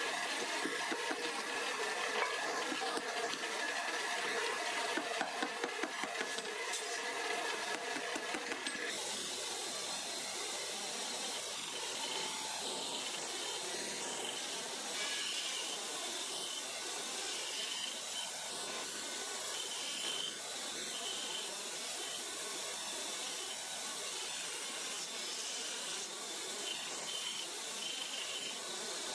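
Quick light hammer taps on a steel anvil, peening pins through a knife's handle scales, for about the first nine seconds. Then a belt-driven grinding wheel hisses steadily as the knife handle is pressed against it and shaped.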